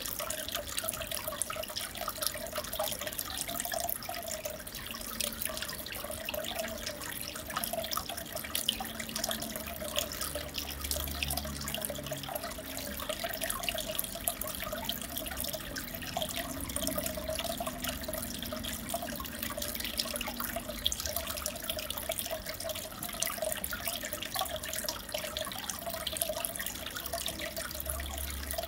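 Aquarium water bubbling and trickling steadily, a dense patter of small splashes.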